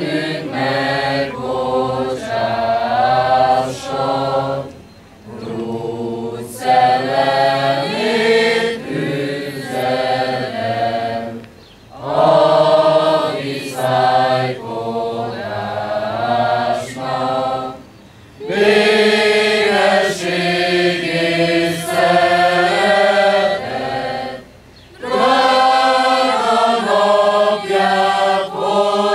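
Mixed choir of women's and men's voices singing a Hungarian hymn without accompaniment. The singing comes in phrases of about six seconds, with a short pause for breath between them.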